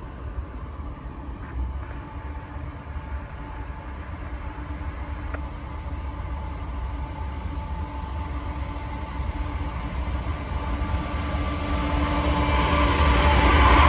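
Norfolk Southern mixed freight train led by GE AC44C6M diesel locomotives approaching slowly. Its steady engine drone and rumble grow louder as it nears.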